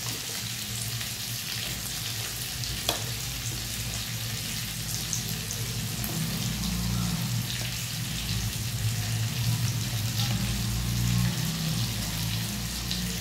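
Mustard oil sizzling steadily in a kadhai around pieces of boiled elephant foot yam and tomato masala, with a steady low hum underneath and a single sharp click about three seconds in.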